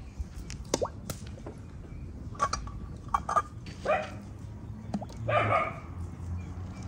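A dog barking several times in short bursts, spread irregularly through a few seconds, with the longest bark about five seconds in.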